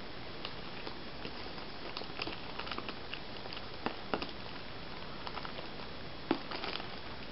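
Scattered light clicks, crackles and rustles of kit being handled over dry leaf litter, with sharper knocks about four seconds in and again a little after six, over a steady hiss.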